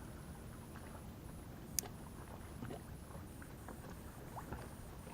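Quiet open-air background on a fishing kayak: a low steady rumble of wind and water, with a faint high-pitched pulse repeating about twice a second. One sharp click comes a little under two seconds in, with a few faint ticks after it.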